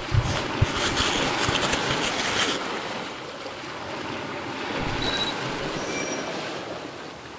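Rushing, splashing seawater and surf noise on an action camera's microphone as it breaks the surface, loudest and hissiest for the first couple of seconds, then a steadier wash with a few short high beeps near the end.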